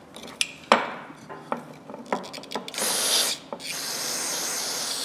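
Metal parts of locking pliers clicking and knocking as they are handled, then an aerosol can of carburetor cleaner spraying with a steady hiss from a little under three seconds in, broken briefly once, to flush dirt out of the pliers.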